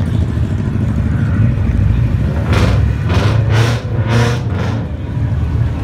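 Car engine running, a loud, steady low rumble. Four short loud bursts about half a second apart come in the middle.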